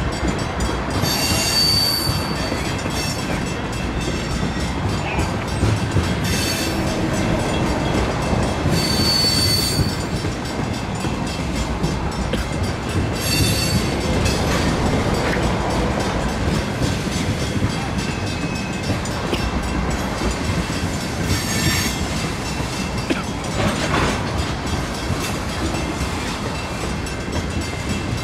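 Freight train of tank cars rolling slowly past, its steel wheels rumbling on the rails, with brief high-pitched wheel squeals every few seconds.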